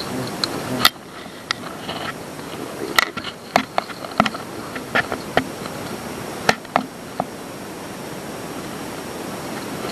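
Scattered light clicks and knocks from handling, over a steady outdoor hiss with a faint insect-like drone; the clicks stop about seven seconds in.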